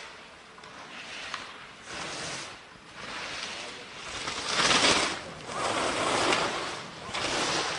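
Ski edges carving turns on hard-packed snow: a scraping hiss with each turn, one surge after another. The surges are faint at first and much louder from about halfway through.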